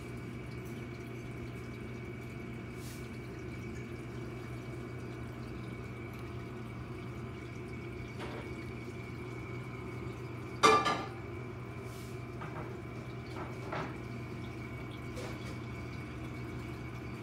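Reef aquarium's water circulation running steadily, a low hum with flowing and dripping water and a faint steady high whine. One sudden sharp click about ten and a half seconds in, with a few softer ticks after it.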